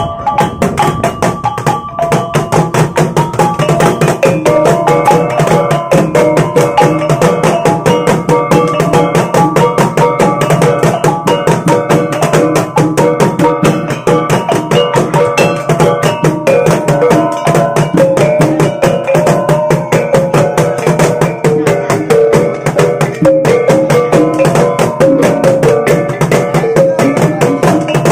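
Bajau bertitik ensemble playing: tall wooden gendang drums beaten fast with sticks in a dense, steady rhythm, under a melody on a row of small kettle gongs (kulintangan).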